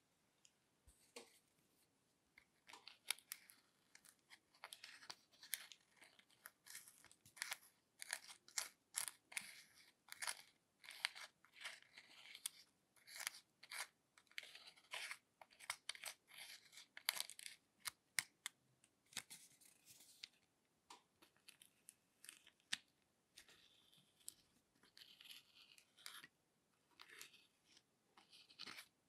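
A small spatula scraping and digging pressed glitter eyeshadow out of its palette pans: quick, irregular scratchy clicks and scrapes, several a second, picking up a couple of seconds in.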